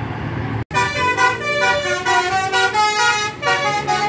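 Tour bus's Basuri telolet multi-tone air horn playing a quick tune of changing notes. It starts suddenly about a second in, after a cut from steady engine noise.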